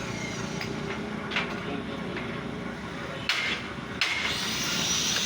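Steady running of workshop machinery, with a few sharp metallic knocks.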